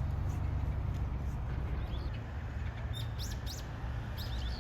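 Small birds chirping in short, high calls, a cluster about three seconds in and more near the end, over a steady low rumble.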